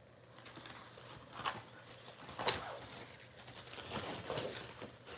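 Paper and its packaging rustling and crinkling in several short rustles as a pack of 12-inch designer paper is unwrapped and the sheets are handled.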